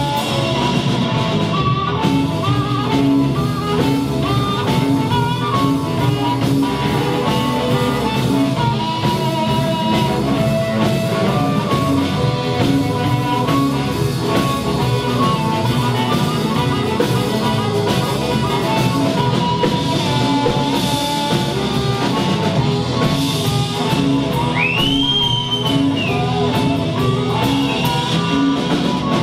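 Live blues band playing an instrumental passage without vocals: guitar over bass and drum kit, with one sliding, bent note about 25 seconds in.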